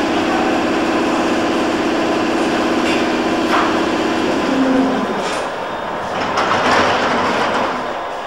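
London Underground subsurface train standing at the platform with a steady hum for about four and a half seconds. Its sliding doors then close with a clattering thud about six to seven seconds in.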